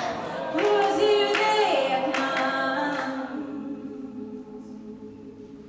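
An a cappella group sings: a female lead voice over layered backing voices. About three seconds in, the lead drops out and a held chord from the backing voices fades away.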